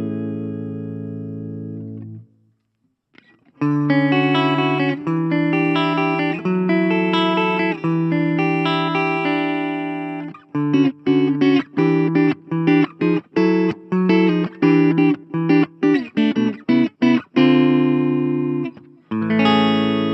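PRS Custom 22 electric guitar played on the clean channel of a Blackstar Fly 3 mini amp. A ringing chord stops about two seconds in, and after a brief pause held chords change about once a second. From about halfway the chords turn short and choppy with gaps between them, and a new chord rings out near the end.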